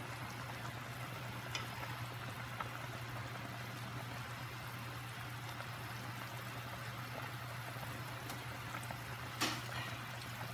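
Pot of sinigang soup simmering on the stove: a steady bubbling hiss over a steady low hum, with a few faint clicks and one sharper click near the end.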